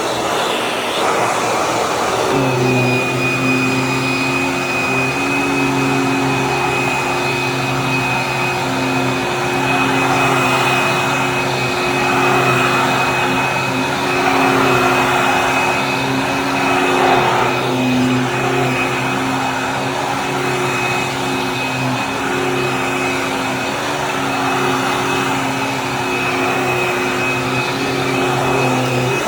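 Hoover WindTunnel Tempo Widepath upright vacuum cleaner running steadily, with a high motor whine. About two seconds in, a lower hum joins, and it stays steady. The owner calls the brush roll kind of rough.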